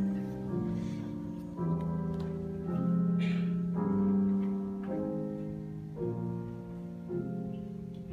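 Live band and orchestra music in a soft passage: held chords with piano, changing about once a second.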